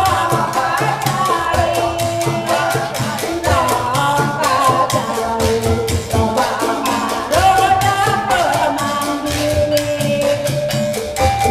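Sundanese Bangkongreang music: a woman sings a gliding, ornamented melody into a microphone over fast, steady clicking of handheld bamboo percussion.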